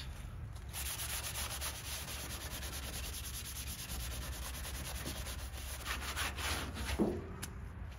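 A wet sponge loaded with Comet cleanser scrubbing back and forth over the faded, oxidized paint of a 1964 Ford F100's body panel, in quick, even rubbing strokes that die away near the end.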